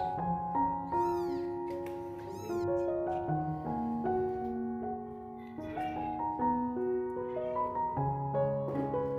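Soft piano music with several short, high-pitched mews from newborn kittens in the first three seconds, and fainter mews later on.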